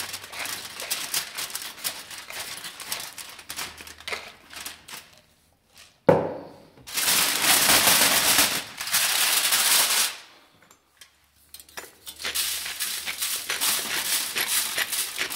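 A hand-held spice grinder cranking over a foil pouch of onions, with rapid clicking. About six seconds in there is a sharp knock, then a plastic bag rustling loudly for about three seconds. Near the end comes more crinkling and clicking.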